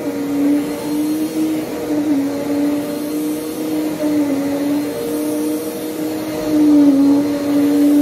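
Upright vacuum cleaner running while it is pushed back and forth over carpet: a steady motor hum whose pitch dips slightly a few times, growing a little louder near the end.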